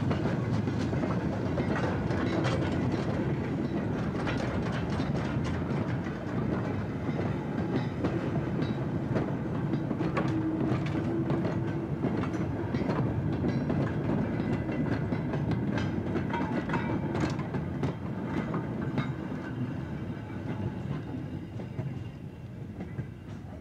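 Goods wagons of a steam-hauled freight train rolling past, wheels clattering over the rail joints with scattered knocks from the running gear. The sound fades over the last few seconds as the train draws away.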